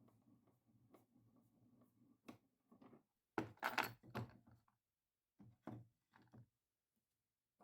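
Faint, scattered knocks and clatters of objects being handled: a single knock, then a quick cluster of several louder ones, then a few more a second or two later.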